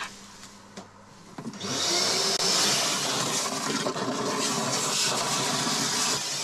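Wet vacuum (ordinary shop wet/dry vac) sucking shallow bilge water out of a boat's bilge through its hose nozzle. It comes on with a steady, loud hiss about a second and a half in and stops just before the end.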